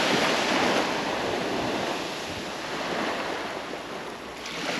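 Surf washing onto the beach: an even rush of breaking waves that eases off, then builds again as the next wave comes in near the end.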